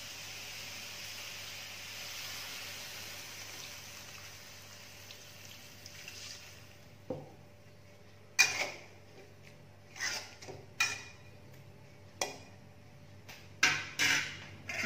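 Water poured into a hot wok hisses and sizzles, dying away after about six seconds. Then a metal spatula knocks and scrapes against the wok about seven times, the loudest hit about eight seconds in.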